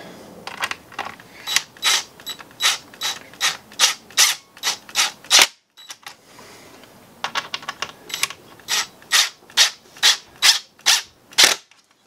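Cordless driver screwing metric threaded furniture inserts into plywood, making a run of sharp ratcheting clicks about two or three a second. There are two runs, with a short break near the middle.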